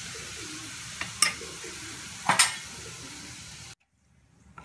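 Turmeric and garam masala sizzling in hot oil in a kadhai, with a steady hiss and three sharp knocks of a spatula against the pan, the last the loudest. The sound cuts off suddenly near the end.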